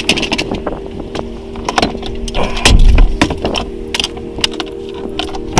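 Clicks, knocks and rattles of a plastic lidded box being opened and rummaged through by hand, with a loud low rumble about three seconds in.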